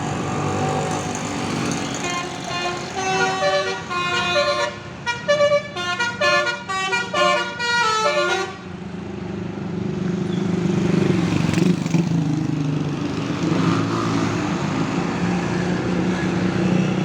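Indonesian 'telolet' multi-tone musical bus horn playing a rapid tune of changing notes for about six seconds, starting about two seconds in. A steady low vehicle rumble from the bus engine and traffic runs underneath and swells as the bus passes.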